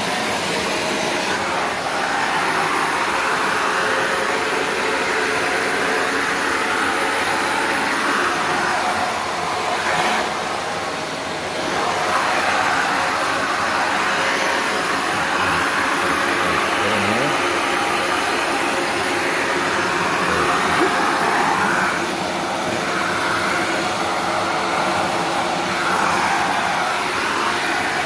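Shark NV355 upright vacuum running steadily in its converted, above-floor mode: a constant motor whine under a strong rush of air through the hose.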